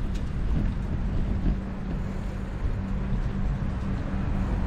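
Wind rumbling on the microphone of a moving bicycle, with road-traffic noise beside it and a steady low hum underneath.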